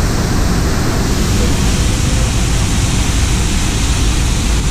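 Steady rumbling running noise of a moving Disneyland Railroad passenger train, with a heavy low rumble under an even hiss.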